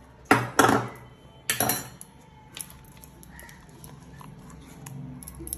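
A spoon and kitchen bowls clinking and scraping a few times in the first two seconds, then only faint room noise.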